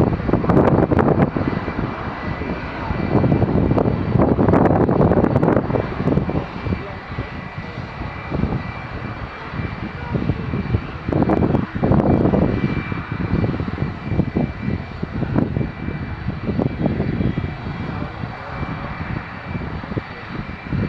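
Jet airliner engines running at the airport: a steady high whine over a loud rumbling rush that swells and fades several times, loudest in the first few seconds and again about halfway through.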